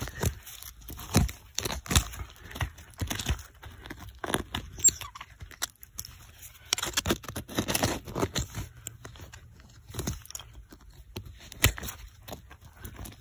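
Hand rake scraping and digging through root-filled soil: irregular scrapes, crunches and sharp knocks, with a longer run of scraping about seven to eight seconds in.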